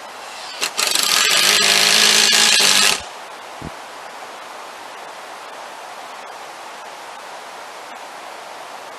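A cordless power tool runs in one burst of about two seconds, a steady motor whine with a harsh high-pitched noise over it, then stops; a short low knock follows.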